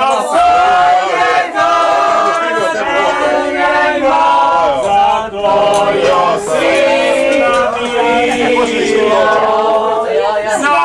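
A group of voices singing a Slovenian folk song about the grapevine in harmony, with long held notes.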